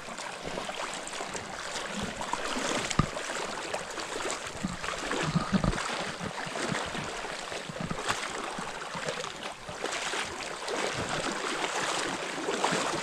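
Flowing stream water rushing steadily, with a few dull knocks about three and five seconds in.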